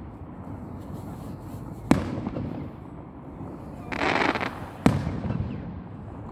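Fireworks display: two sharp bangs of shells bursting overhead, about three seconds apart, each trailing off in a rolling echo, with a short hiss just before the second.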